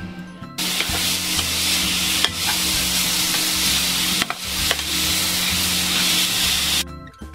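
Rice cake slices and shepherd's purse sizzling as they are stir-fried in a hot wok, with a few sharp knocks of the metal spatula against the pan. The sizzle starts about half a second in and cuts off suddenly near the end.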